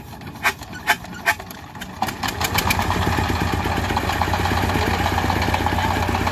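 Hand-cranked diesel engine of a walking farm tractor being started by two men: a few sharp knocks as the crank is swung, then the engine catches about two seconds in and settles into a steady, fast chugging run.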